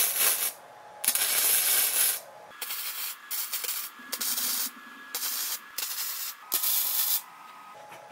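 Wire-feed welder laying short tack welds on steel motorcycle head tube pieces: a series of about seven hissing bursts, each under about a second long, with brief pauses between them.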